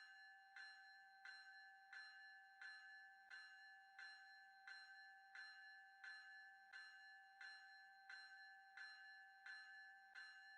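Railroad grade-crossing bell ringing faintly and steadily, about three strokes every two seconds, each stroke ringing on between strikes.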